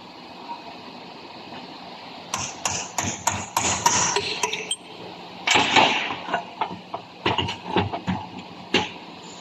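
A run of irregular sharp metallic knocks and clatter, like tools striking metal, starting about two seconds in, with a denser burst of rattling midway and a steady low hum underneath.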